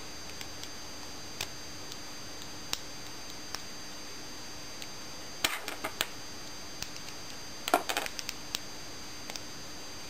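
Small hard-plastic clicks and snaps from a Transformers Ravage action figure's hinged parts being folded and swivelled by hand. Single clicks are scattered throughout, with a quick flurry about halfway through and a louder cluster about two seconds later.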